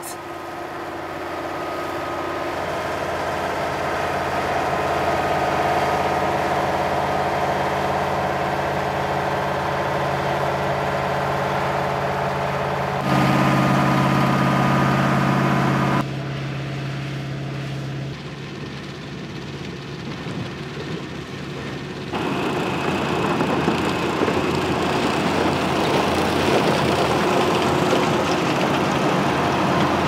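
1991 Holmer KRBS self-propelled sugar beet harvester at work: its Mercedes-Benz V8 engine runs steadily under the noise of the lifting and elevating gear. The sound changes abruptly in level and tone three times.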